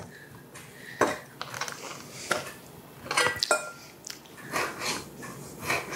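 Kitchen utensils and dishes knocking and clinking: a handful of separate knocks, with a few brief ringing clinks around the middle.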